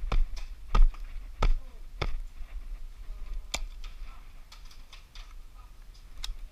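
A run of sharp thuds, about one every two-thirds of a second for the first two seconds, then two more single knocks later, over a low hum.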